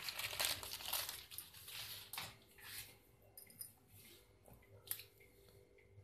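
Plastic ketchup sachet crinkling as it is handled, busiest over the first three seconds, then a few light clicks and one sharper click about five seconds in.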